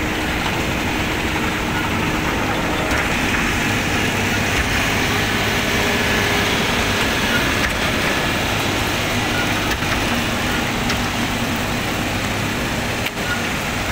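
XCMG tracked asphalt paver's diesel engine running steadily at close range as the machine lays asphalt, a dense continuous mechanical noise.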